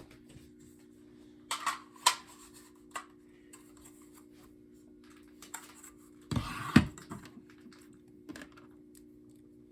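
Scattered hard plastic clicks and knocks of a mounting bracket being fitted onto a smoke alarm, the loudest clatter about six and a half seconds in. A steady low hum sits underneath.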